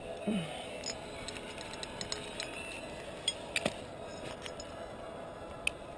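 Light metallic clicks and clinks of climbing gear (carabiners and cams) being handled, a few scattered taps over a faint steady hum.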